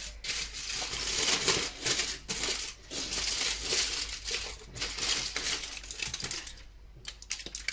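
Aluminium foil packet being unwrapped around a freshly roasted beet, crinkling and crackling, then thinning to a few light crinkles about six and a half seconds in.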